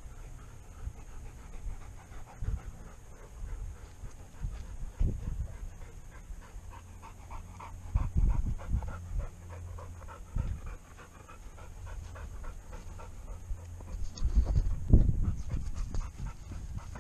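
A dog panting hard close to the microphone in quick, rhythmic breaths, with a few low thumps.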